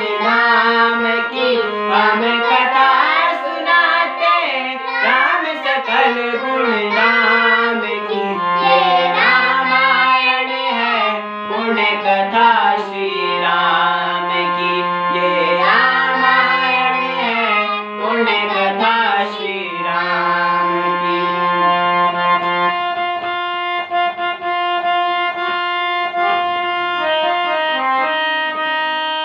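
Two boys singing a Hindi devotional bhajan together over a hand-pumped harmonium's held chords. About three-quarters of the way through the voices stop and the harmonium plays on alone, sustaining steady chords.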